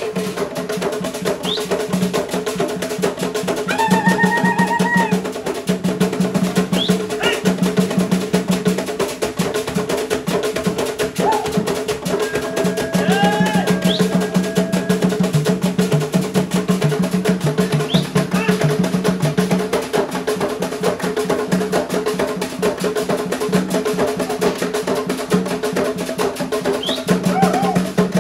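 Fast, continuous hand drumming from a traditional African drum troupe accompanying a dance, with a few short high calls over it.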